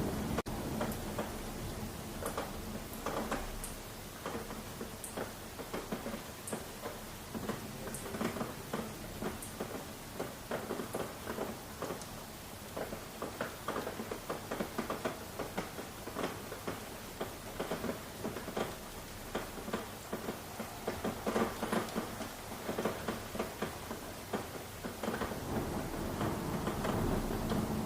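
Steady rain with many separate drops pattering and ticking. A low rumble swells again over the last few seconds.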